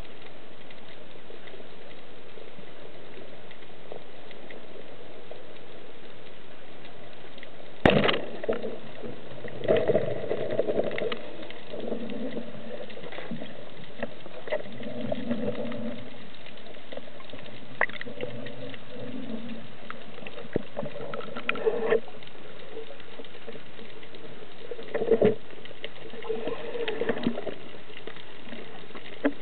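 Underwater hiss of water around the camera, broken about eight seconds in by a single sharp crack as a wooden band speargun is fired. Scattered knocks and low rumbles follow, on and off.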